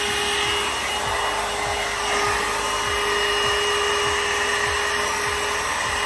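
One Step hot-air brush hair dryer running on its high setting: a steady motor whine with the rush of blown air.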